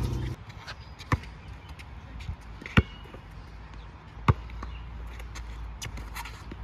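Basketball bouncing on an outdoor court: several sharp, separate bounces about a second and a half apart.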